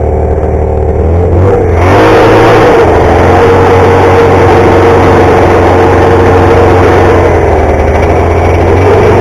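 1970 Ski-Doo Olympique's 399 cc two-stroke twin engine running low, then revving up about a second and a half in as the snowmobile pulls away, and running steadily under way.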